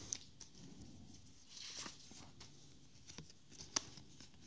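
Soft rustling and faint light ticks of trading cards being handled and slid through by hand, with one sharper tick about three quarters of the way in.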